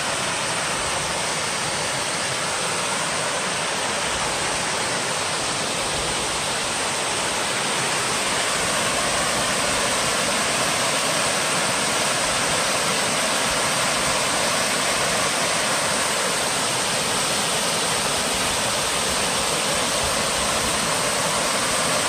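Waterfall running in heavy flow: a steady rushing of water that swells a little about eight seconds in.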